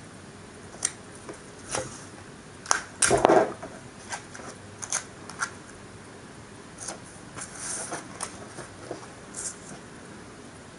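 Paper model wall sections and tape being handled on a tabletop: scattered light rustles, taps and crinkles, with a louder cluster about three seconds in.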